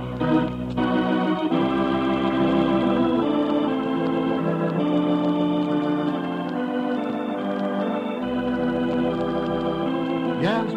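Radio program's opening theme music: held chords that change every second or so at a steady level. An announcer's voice comes in right at the end.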